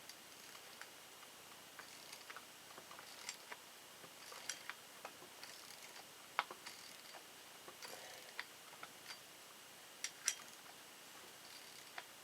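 Small metal tools and parts being handled: light, irregular clicks and taps of a socket and a pulley-removal tool, about one a second.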